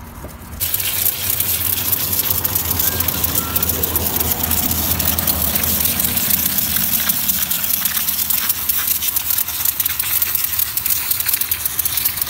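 Pressure washer jet spraying water onto a bare engine crankshaft and cylinder block on concrete: a loud, steady hiss that starts about half a second in, with a low hum beneath that fades out about seven seconds in. The parts are being rinsed clean after solvent cleaning, ready for engine assembly.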